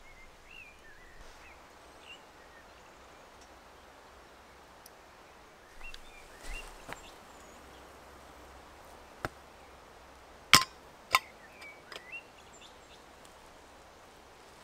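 Sharp metal clinks and knocks from a camping pot and its lid being handled on a small camp stove, scattered through the second half, the loudest two close together about three quarters of the way in. A bird chirps faintly now and then.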